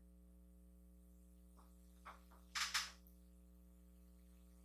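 Eating sounds as a forkful of spaghetti goes into the mouth: a small click, then a short wet mouth sound about two and a half seconds in, over a faint steady electrical hum.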